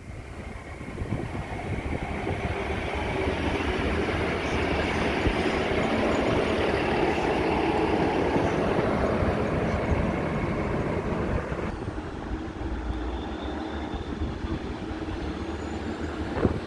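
Diesel passenger train running along the platform. Its rumble builds over the first few seconds, is loudest around the middle, and eases off in the last few seconds.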